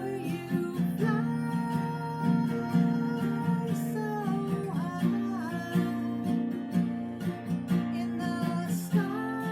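Acoustic guitar strummed and picked in a steady, even rhythm, playing a song accompaniment.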